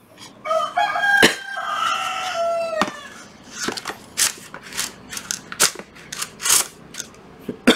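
A rooster crows once, one long call of about two and a half seconds that dips in pitch at the end. Then come a series of short clicks and knocks from the plastic housing of a Hilti dust extraction attachment being handled.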